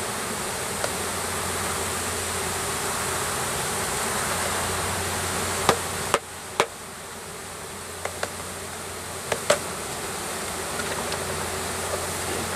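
A package of honeybees buzzing steadily as the bees are shaken out of their wooden shipping box into a hive. About halfway through come several sharp knocks, the box being banged to knock the clustered bees loose.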